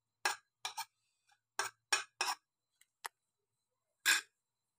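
A metal spoon clinking and scraping against steel cookware: about seven short, separate knocks spread out, as the spoon is used to add ginger-and-chilli paste to a pressure cooker.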